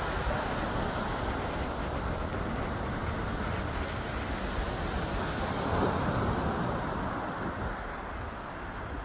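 Small surf waves breaking and washing up a sandy beach in a steady rush, swelling a little past halfway, with wind buffeting the microphone.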